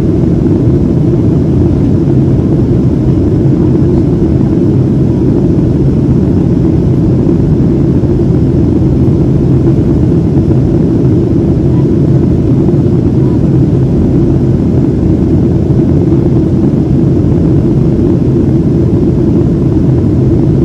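Cabin noise of a Boeing 737-700 in flight: a steady, deep rush from its CFM56-7B jet engines and the air streaming past the fuselage, heard from a passenger seat.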